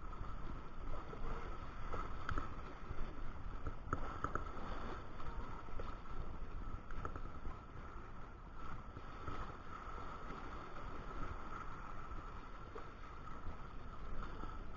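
Steady noise of river water, with a few faint short clicks.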